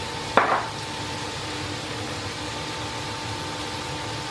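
Steady sizzling of beef strips browning in a frying pan on a portable induction cooktop, with a faint steady hum under it. A short sharp sound about half a second in as a spice jar is opened.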